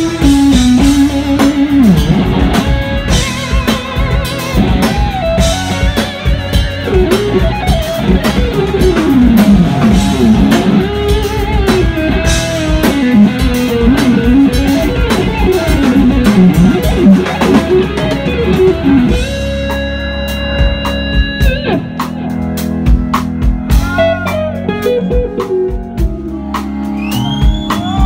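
A live blues-rock band plays: an electric guitar takes a lead solo full of string bends and vibrato over drums, bass and organ. About twenty seconds in, the band drops to a quieter passage of held chords, with the guitar still playing short phrases over it.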